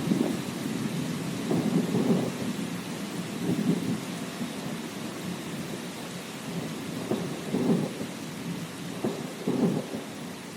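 Thunder rumbling in repeated low swells over a steady hiss of heavy rain, the rumbles growing weaker toward the end.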